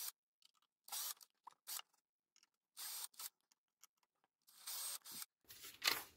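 Ryobi 18V cordless drill with a 1.2 mm bit boring out holes in a copper-clad circuit board, in about five or six short bursts of a high hiss with silence between them.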